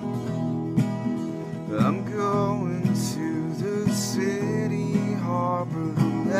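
Acoustic guitar played with a stroke about once a second, and a man's singing voice coming in over it about two seconds in.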